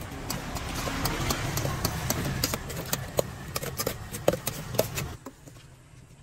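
Metal spoon clinking and scraping against a stainless steel mixing bowl as a wet seafood salad is tossed, a rapid irregular run of sharp clinks. Under it a steady low rumble, which drops away suddenly about five seconds in, leaving a few quieter clinks.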